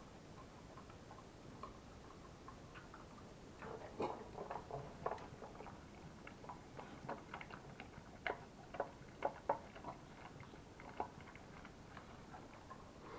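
American Staffordshire terrier eating wet canned dog food from a steel bowl: irregular wet clicks and smacks of licking and chewing, coming thickest about four seconds in and again from about eight seconds.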